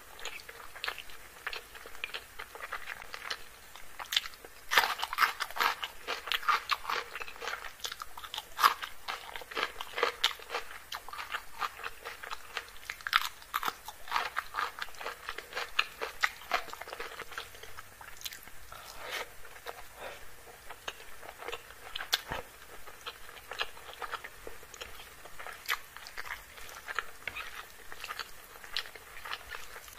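Close-up eating sounds: crunchy bites and chewing of rice with a crisp fried topping, eaten by hand, in dense, irregular crackling crunches.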